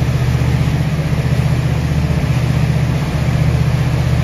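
Meridian 341 motor yacht's inboard gas engines running steadily under way at cruise, around 2,000 RPM: a loud, low, even drone with a fast throb.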